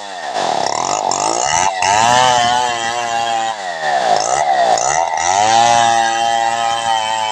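Stihl 070 two-stroke chainsaw ripping a log lengthwise. Its revs drop and climb back twice, about a second in and again around the middle, then hold steady and high in the cut.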